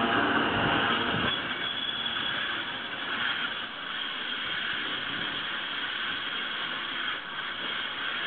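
Running noise of a moving passenger train heard from one of its cars: a steady clatter and rattle of wheels on rails and car bodies. A heavier low rumble drops away about a second in.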